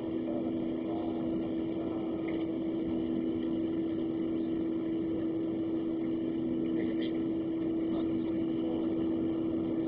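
Cabin sound of a Boeing 737-700 on the ground with its CFM56-7B jet engines at idle: a steady hum with two constant low tones over an even rush of air.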